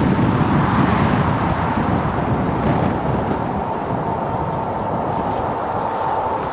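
Car on the move: a steady rush of road and tyre noise with low engine rumble, easing and getting quieter as the car slows. A thin steady whine joins in the second half.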